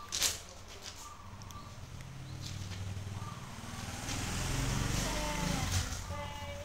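A motor vehicle passes by: its engine sound swells from about two seconds in, peaks, and falls away with a dropping pitch near the end. A sharp paper rustle sounds at the very start.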